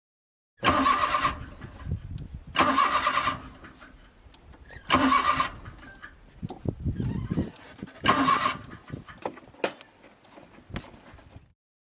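Car starter motor cranking the engine in four short bursts, each under a second, and the engine does not start.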